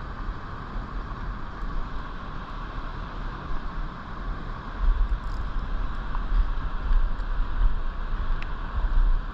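Steady rush of river water, with wind buffeting the microphone in low gusts that grow stronger from about five seconds in.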